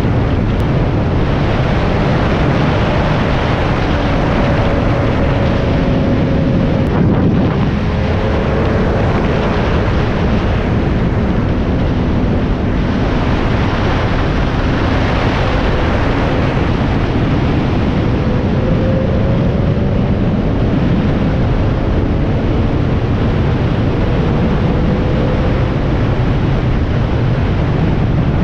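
Heavy wind rush over the camera microphone on a Kawasaki sport bike cruising at highway speed, with the engine's hum faintly underneath, its pitch drifting slowly up and down.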